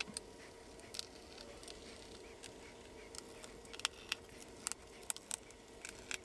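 Faint scattered clicks and taps of a small precision screwdriver and parts being handled on a silicone work mat, more frequent in the second half, over a low steady hum.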